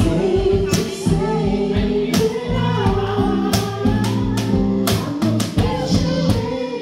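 Live acoustic band: two women singing into microphones over acoustic guitar, with cajon hits marking the beat.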